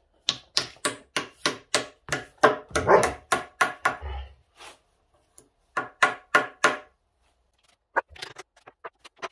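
Small hammer tapping wooden biscuits into their glued slots in the edge of an ash slab: sharp knocks about three a second, a short pause, another quick run, then lighter taps near the end.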